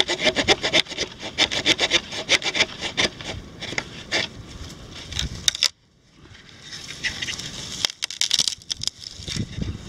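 Thin cord rubbing and rasping against a dead wooden pole as it is wrapped and pulled tight around it, in quick repeated strokes. About five and a half seconds in the sound cuts off abruptly, followed by a softer hissing rustle and a few more strokes near the end.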